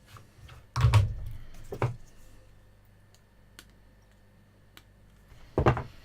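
Clicks and knocks of small parts and hand tools being handled on a workbench: a loud clatter about a second in, a smaller knock just after it, and another clatter near the end.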